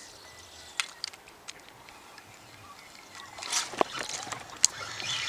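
Water sounds around a kayak on a calm lake: scattered small clicks and knocks, with a couple of brief splashy sloshes, the largest about three and a half seconds in.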